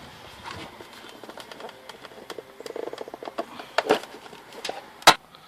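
Scattered small clicks and knocks of the plastic side-mirror glass and housing being handled and pressed together, with one sharp click about five seconds in.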